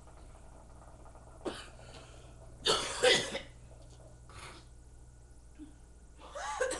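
A person coughing several times, likely from hookah smoke, with the loudest a double cough about three seconds in and a rougher cough near the end.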